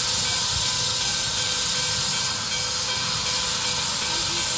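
Nickel Plate Road 765, a 2-8-4 Berkshire steam locomotive, venting steam with a steady, loud hiss.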